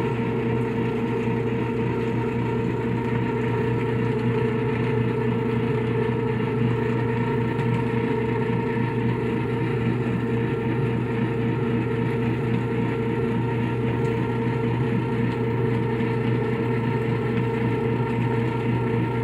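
Latina LA551 semi-automatic washing machine running a wash cycle with a load of floor cloths: a steady motor hum with a high whine over it, unbroken and even in level.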